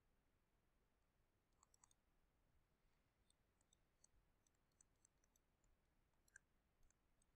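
Near silence, with faint scattered ticks of a pen stylus tapping on a screen as handwriting is written.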